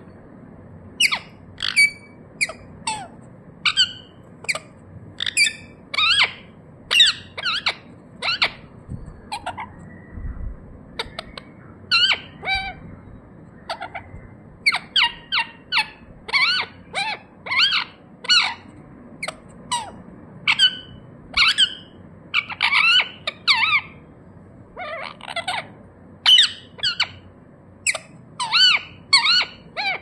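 Indian ringneck parakeet (rose-ringed parakeet) giving a long series of short, sharp squawking calls, about one or two a second, each with a quick bend in pitch, broken by brief pauses.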